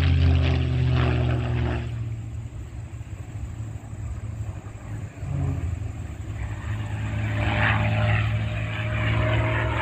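Propeller airplane's piston engine running as it flies by, fading about two seconds in and growing louder again from about six seconds.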